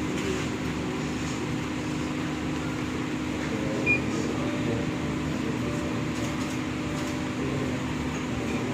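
Steady low mechanical hum with a light hiss, with one short high beep about four seconds in.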